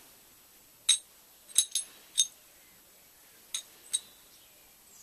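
Stainless steel hygienic pipe fitting and its nut clinking together as they are handled and fitted: about six short, ringing metallic clinks spread over a few seconds.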